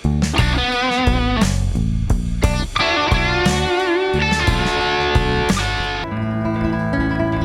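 Electric guitar playing melodic lead phrases with wavering vibrato on held notes, over a low bass line. About six seconds in the playing turns darker and steadier, with sustained lower notes.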